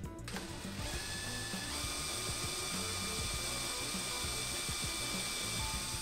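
Cordless drill running steadily with a high motor whine, starting a moment in, as a 3/16-inch bit bores through a plastic speaker pod into a carpeted door panel; the motor's pitch steps up a little about two seconds in. Background music plays underneath.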